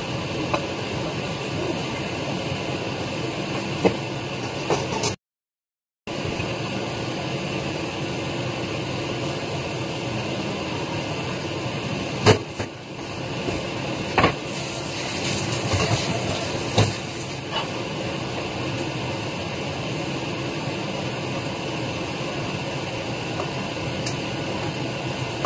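Steady whooshing fan noise, with a few sharp clinks of kitchen utensils against dishes. The sound drops out completely for about a second, some five seconds in.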